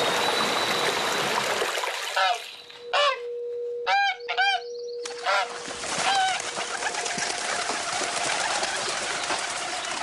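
A shallow stream running over stones, broken off for a few seconds while domestic waterfowl give about six short calls, then the stream running again.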